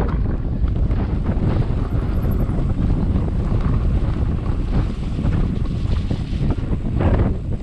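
Heavy wind buffeting the microphone of a mountain bike riding down a bumpy grassy track, with the tyres and bike rumbling and jolting over the rough ground.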